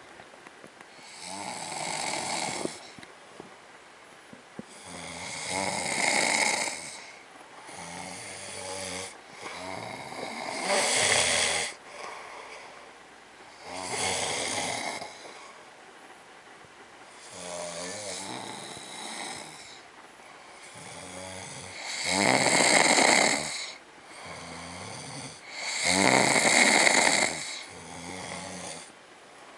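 People snoring in deep sleep, a snore every few seconds at an uneven pace, the loudest two near the end.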